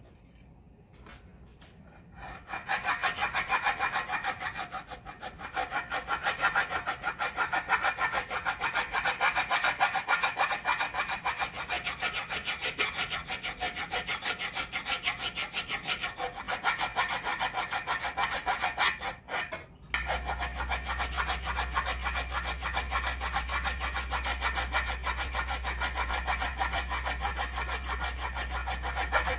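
Hand rasp scraping a new wooden axe handle in quick, steady back-and-forth strokes as the top of the handle is shaped down, starting a couple of seconds in with a brief pause about two-thirds of the way through.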